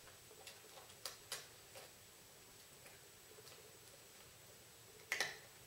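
A dog eating: faint, irregular clicks, with the loudest one near the end.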